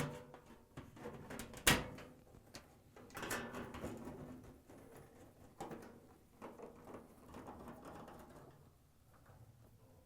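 Faint handling noises of a washer's rear access panel being fitted and screwed on by hand: scattered light knocks and clicks, the loudest a sharp click about two seconds in.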